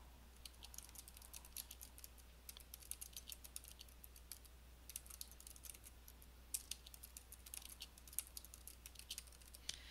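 Faint typing on a computer keyboard: quick, irregular key clicks with a few short pauses.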